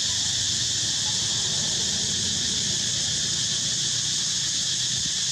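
Steady, unbroken high-pitched drone of an insect chorus, with no change in level.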